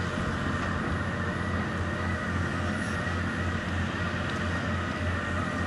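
An engine running steadily: a low hum with a steady, higher-pitched whine above it.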